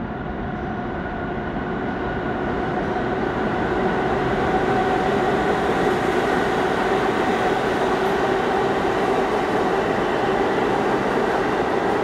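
New York City subway train running through the station at speed on the express track without stopping. It grows louder over the first four seconds as it approaches, then holds a loud, steady run of wheels on rail with a faint hum.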